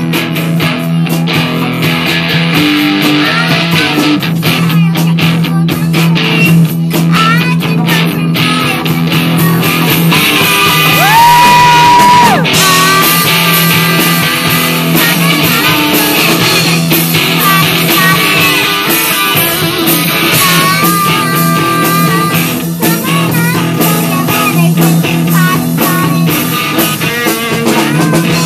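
Live rock band playing a song, with a singer, electric guitar and a steady beat. A long held note sounds about halfway through.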